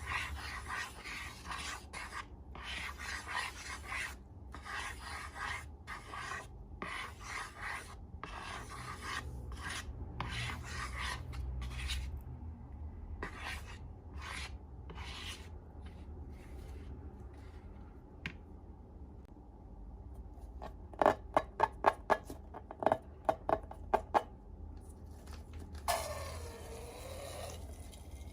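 Close-up ASMR handling of slime-making materials. Repeated rubbing and scraping strokes, about one or two a second, thin out after the first half. Then comes a quick run of about ten sharp clicks, the loudest sounds, and near the end a short squeak that dips and rises in pitch.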